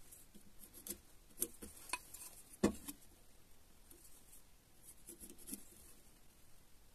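Pencil scratching lines along a steel ruler on the end of a small pine block, with light clicks of the ruler against the wood. One sharper knock comes a little before halfway, and there is a short run of scratching near the end.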